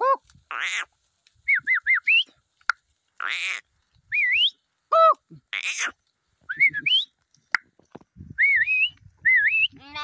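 Sheep bleating now and then from a grazing flock, some calls clear and some harsh. Between the bleats come short, high, wavering whistled calls that repeat several times.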